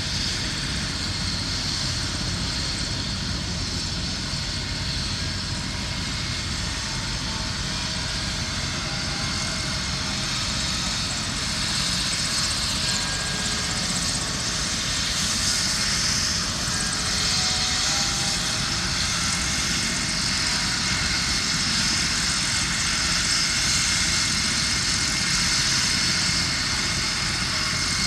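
Helicopter running with a steady engine whine and rotor noise, growing slightly louder over the second half.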